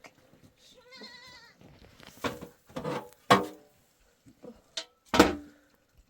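Goats bleating: a quavering bleat about a second in, followed by several louder, shorter calls through the middle and near the end.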